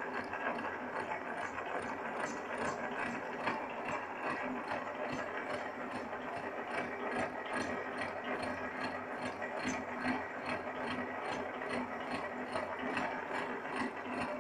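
Horizontal milling machine running, its multi-point gear cutter on the arbor cutting a spur gear tooth into the blank under slow table feed. A steady mechanical run with an even clicking about three times a second.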